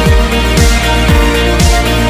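Background music with a deep kick drum about twice a second under sustained chords.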